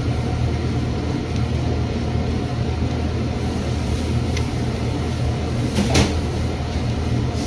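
Pizza dough being kneaded by hand on a countertop, with one sharper thump about six seconds in as the dough is pressed down, over a steady low mechanical hum.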